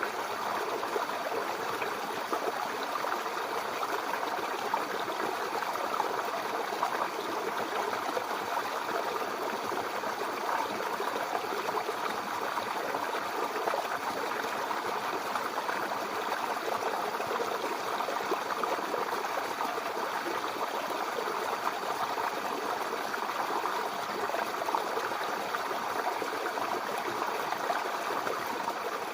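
Mountain river flowing over rocks: a steady rushing and gurgling of water that keeps an even level throughout.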